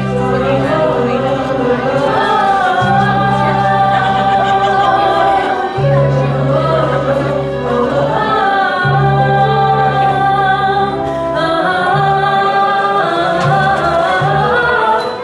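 Group of voices singing together over sustained low chords that change about every three seconds.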